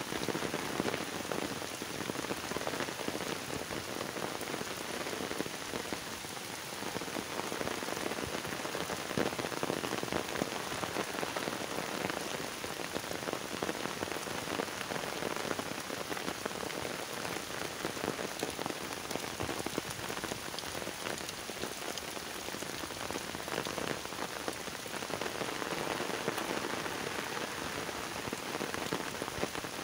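Heavy rain falling steadily on open water and trees, a dense, even patter.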